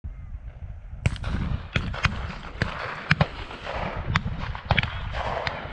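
A rapid, irregular series of about ten sharp bangs and cracks, starting about a second in, some coming in quick pairs, over a low rumble.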